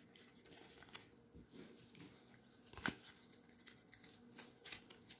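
Faint rustling of a stack of laser-cut game cards in the hands, with one sharp click about three seconds in. Near the end comes a short run of quick card flicks as the deck is shuffled.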